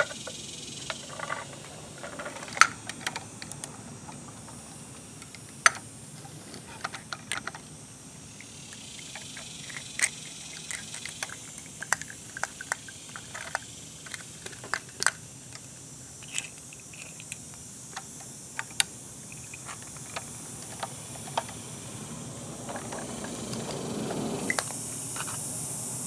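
Scattered light plastic clicks and clacks from a toy front-loader garbage truck and its small plastic carts and yellow Curotto-Can being handled, over a steady high hiss. A louder rushing noise swells briefly near the end.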